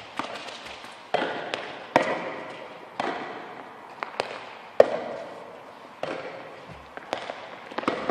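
Children's tennis balls being hit back and forth with junior racquets and bouncing on the court: a string of sharp pops, about one a second, each ringing out in the echo of a large indoor tennis hall.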